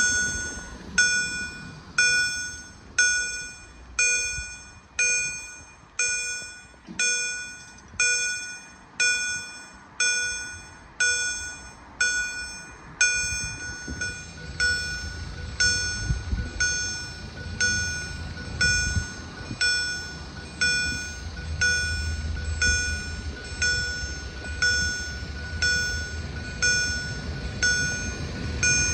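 Railway level-crossing warning bell ringing steadily, about one strike a second, each strike dying away, as the barriers signal an approaching train. From about halfway a low rumble builds underneath as the train nears.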